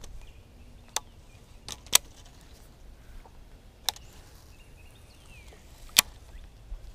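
Sharp, isolated clicks from handling a fishing rod and baitcasting reel, about five spread across a few seconds, the loudest near the end. A faint bird chirp comes in between.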